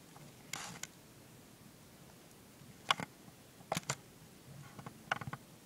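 Handling of a plastic smoke detector: a brief rustle, then a few light clicks and taps in pairs. No alarm tone sounds.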